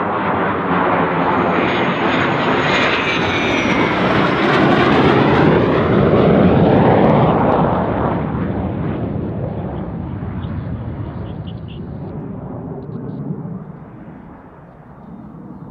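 F-16 fighter jet's engine roar as the jet takes off and climbs out past, loudest around the middle and then fading away. A thin high whine rises in pitch during the first few seconds, and the noise swells a little again near the end.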